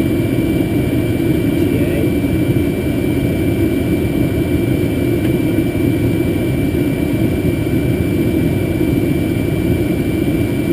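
Steady cockpit noise in a Boeing 747-200 full-flight simulator in flight: a constant low rumble with a thin, steady high whine above it.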